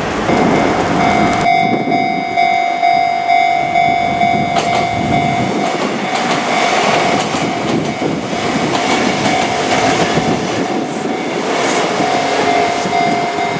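A Kintetsu Minami Osaka Line train passing over the level crossing, its wheels clattering on the rails. Over it the crossing's warning bell rings steadily with a repeating tone.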